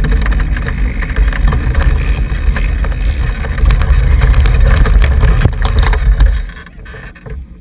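Racing lawnmower's engine running as the mower drives across the grass, with rumble and buffeting on the microphone. The engine sound cuts out about six and a half seconds in as the mower stops.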